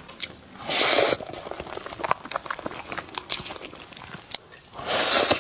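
Close-miked eating: soft chewing and small wet mouth clicks from a mouthful of matcha pudding, with two louder half-second rushes of noise, one about a second in and one near the end.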